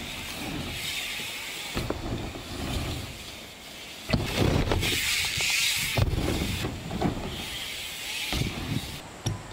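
BMX bike tyres rolling and hissing over ramps in swells, with several thuds as wheels land and hit the transitions, the hardest about two-thirds of the way through.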